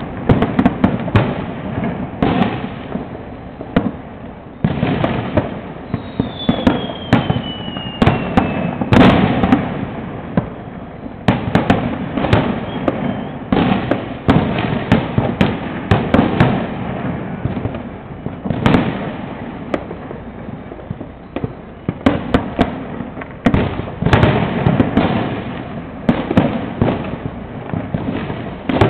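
Fireworks going off in dense, irregular volleys of cracks and bangs. A falling whistle sounds about six seconds in.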